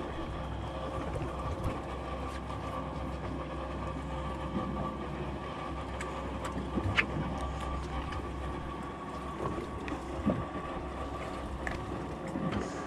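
Boat engine idling with a steady low hum, with a few faint knocks and clicks on deck.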